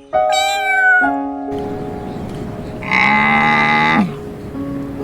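A cat meows once at the start, followed by a louder, lower animal call about three seconds in that lasts about a second and drops in pitch at its end, over background music.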